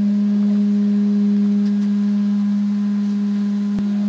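Hawaiian pū, a conch shell trumpet, blown in one long, steady note.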